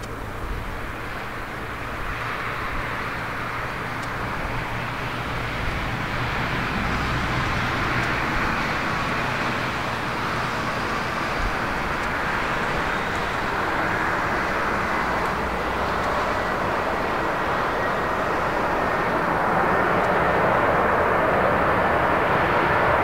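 Boeing 747-400 airliner's four jet engines on final approach, a steady roar growing louder as the aircraft draws near, with a faint high whine coming in near the end.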